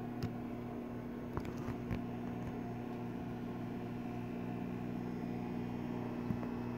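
Microwave oven running with a steady electrical hum while a bag of microwave popcorn heats, before it has properly started popping; a few faint ticks sound over the hum.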